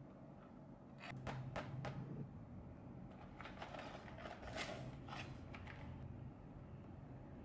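A small cardboard LEGO set box being handled and turned over in the hands: faint scattered taps and rustles in two short clusters, over a low steady hum.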